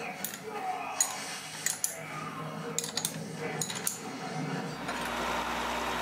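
Scattered metallic clicks and clinks of a wrench on the clamping bolts of a Walter UTA dividing head as the head is tilted back down to horizontal. A low steady machine hum starts about three-quarters of the way in.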